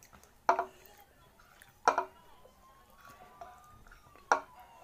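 Chopsticks striking ceramic bowls while eating noodles: three sharp clinks with a short ring, spread across a few seconds. Faint eating sounds sit between them.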